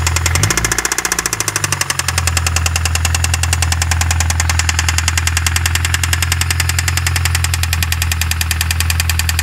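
Toyota 2ZZ 1.8-litre inline-four engine running with a steady, rhythmic knock, its note dipping briefly about half a second in and then recovering. The knock came on with a loss of power after a major overhaul; compression is even across the cylinders and the owner does not know the cause.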